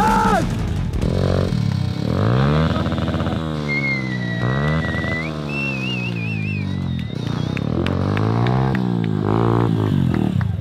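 Small pit-bike (minibike) engine revving up and down repeatedly as it is ridden hard, its pitch climbing and falling several times through the gears. A high wavering whistle sounds over it in the middle.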